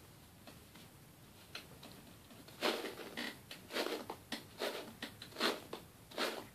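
Hairbrush being pulled through long hair, a run of short swishing strokes about two or three a second, starting nearly three seconds in after a few faint ticks.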